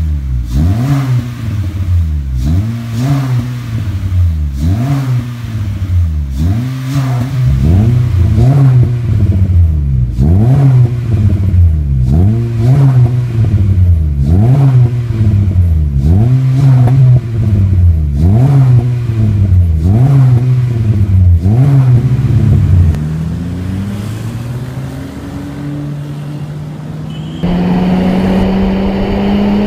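Honda City's i-VTEC four-cylinder engine breathing through an aftermarket exhaust, free-revved in quick blips about once a second, the pitch rising and falling with each. It then drops to a lower, steadier note. Near the end it is heard on the road, running louder at a steady pitch that climbs slowly.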